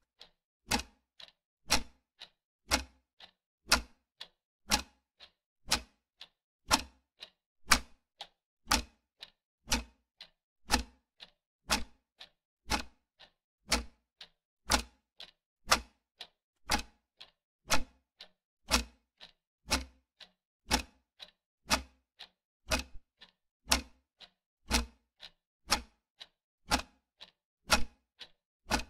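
Clock-ticking sound effect: a steady tick-tock of about two sharp ticks a second, alternating louder and softer, timing a countdown.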